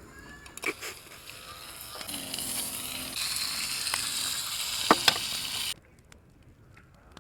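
Food sizzling over a fire: a hiss that builds over a few seconds, with a few sharp clicks and pops, then cuts off abruptly.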